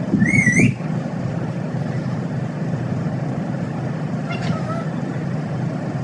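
Rose-ringed parakeet giving a short, loud, wavering call just after the start, then a fainter call about four seconds later, over a steady low hum.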